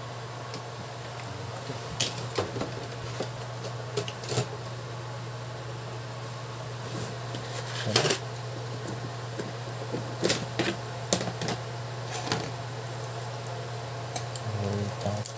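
A steady low hum, with scattered clicks and knocks of tools and parts being handled on a workbench, the loudest about eight seconds in.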